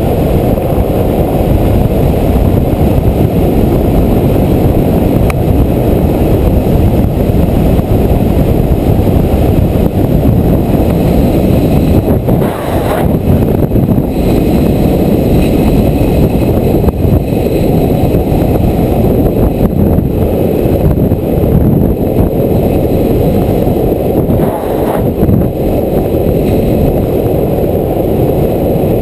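Steady, loud wind rumble on the camera's microphone during a fast downhill skateboard run, mixed with the roll of skateboard wheels on asphalt. It eases briefly about halfway through and again near the end.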